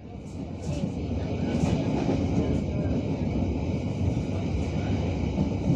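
Steady rumble and rattle of a passenger train carriage running along the rails, heard from inside the coach, rising in the first second.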